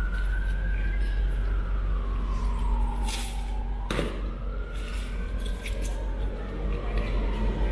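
An emergency-vehicle siren in a slow wail, rising, falling and rising again over several seconds, over a steady low rumble. A single sharp knock comes about four seconds in.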